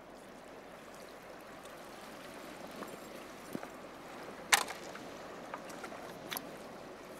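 Shallow seawater trickling and lapping among the rocks of a tidal pool. There is a sharp click about four and a half seconds in and a smaller one a couple of seconds later.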